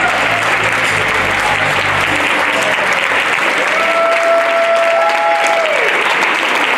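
Audience applauding at the end of a dance performance, with the low beat of the backing music stopping about two seconds in.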